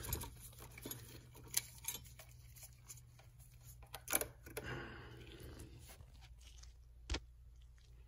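Faint rustling of gloved hands handling an engine wiring harness and its plastic connectors, with a few sharp clicks, the sharpest near the end.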